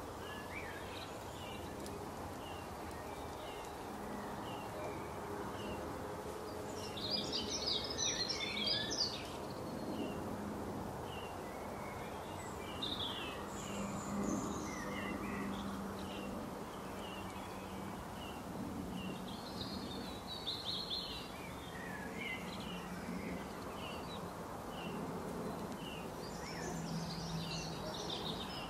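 Wild birds calling over a steady outdoor hiss: a short high chirp repeated about once a second, with louder bursts of rapid high twittering three times.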